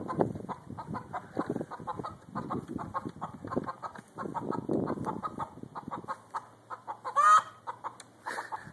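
Chicken clucking over and over in quick short calls, with one louder, drawn-out squawk about seven seconds in.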